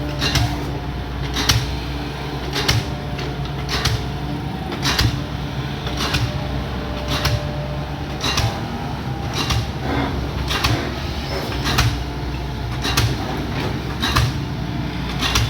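Excavator's diesel engine running steadily, with sharp metallic knocks about once a second.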